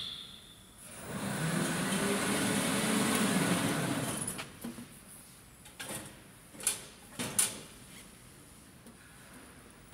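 Cargo tricycle wheel turning on the rollers of a vehicle test stand, a rumble with a wavering hum that swells for about three seconds and then dies away. A few sharp clicks and knocks follow.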